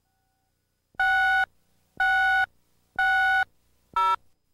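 Electronic countdown beeps from a videotape commercial slate: three half-second beeps a second apart, then a shorter fourth beep at a different pitch that marks the end of the count.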